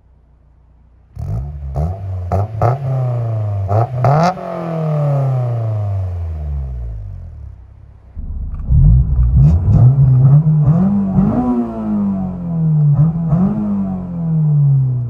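Honda S2000's inline-four revving in place through an Invidia Q300 dual-tip exhaust. It idles for about a second, then runs up through a string of quick revs that rise and fall in pitch. After settling back, a second run of sharper, louder revs follows in the second half.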